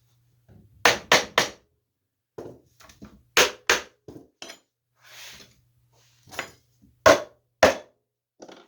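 Sharp knocks on wood in quick groups of two or three, with a short scrape about halfway through, as the glued chair's joints are pushed home and clamped.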